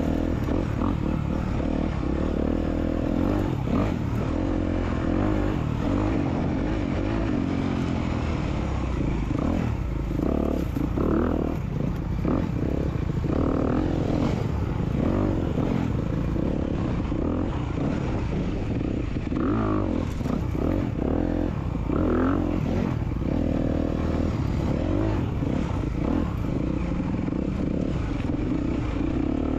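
Dirt bike engine being ridden hard, its revs rising and falling again and again as it accelerates, shifts and backs off.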